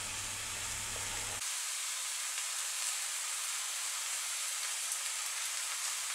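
Pastrami slices frying on a hot oiled griddle, sizzling steadily with faint crackles. A low hum underneath cuts out about a second and a half in.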